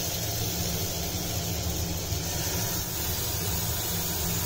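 Melted butter with garlic paste sizzling and bubbling in a nonstick wok: a steady hiss over a steady low hum.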